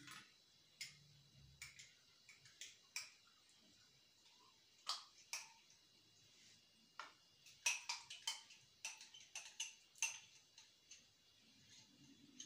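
Faint, scattered sharp clicks and light taps, coming thicker in the second half, of a drinking glass knocking against a glazed clay mixing bowl as melted butter is poured into flour.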